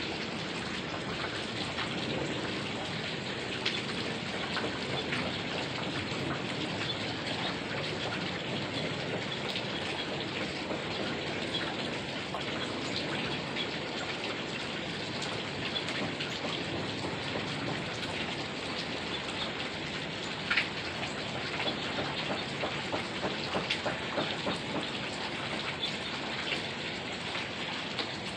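Heavy rain falling steadily, with many single drops striking close by. A sharp tap comes about twenty seconds in, followed by a run of louder drips.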